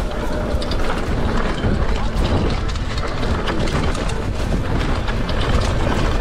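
Mountain bike rolling down a bumpy dirt trail: steady tyre rumble with a constant rattle and clatter of the bike over the rough ground, and wind buffeting the microphone.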